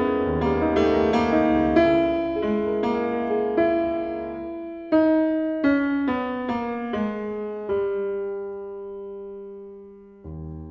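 Background piano music: a melody in struck notes over bass chords, slowing and fading out, with a new chord entering near the end.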